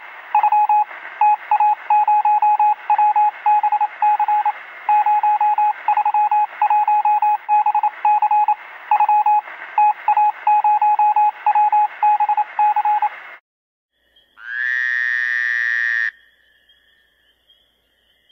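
A single beeping tone keyed on and off in an uneven pattern of short and long beeps over a radio-like hiss, in the manner of Morse code; it stops about 13 seconds in. Shortly after comes a brief rising electronic sweep.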